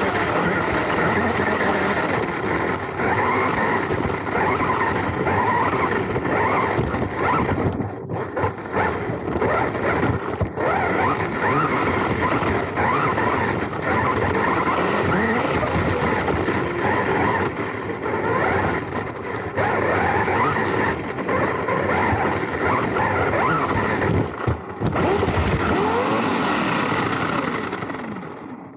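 Onboard sound of a Serpent SDX4 4wd electric RC buggy racing. The brushless motor and geared drivetrain whine rises and falls with the throttle over the rumble of tyres on artificial turf. The sound drops away near the end.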